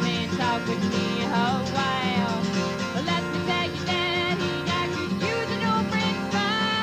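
Live country music: an acoustic guitar playing under a lead melody line that slides and wavers between notes, in an instrumental passage with no singing.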